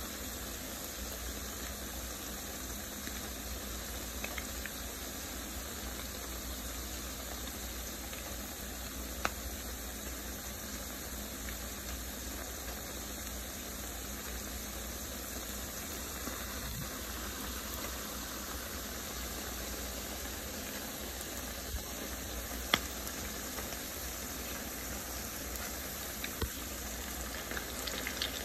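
Salmon patties frying in hot oil: a steady sizzle, with a few sharp ticks about 9 seconds in, about 23 seconds in and several near the end.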